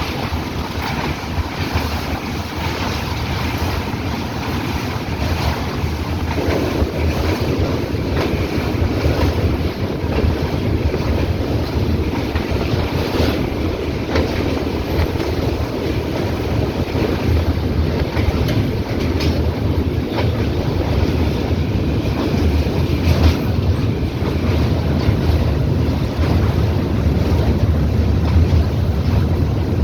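Express train running at speed, heard from on board: a steady low rumble with dense rattling, with strong wind buffeting the microphone. It grows a little louder about six seconds in.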